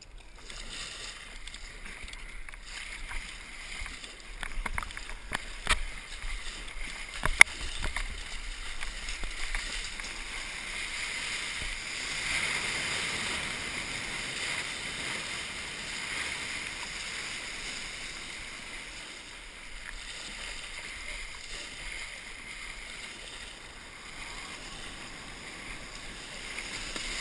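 Sea water rushing and breaking around a kayak riding in through the surf. The rush swells louder a little under halfway through as breaking white water surges past, and there are a few sharp knocks in the first third.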